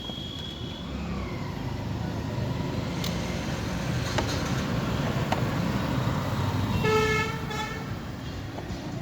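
Road traffic rumbling past, growing louder toward the middle. A vehicle horn toots twice in quick succession about seven seconds in.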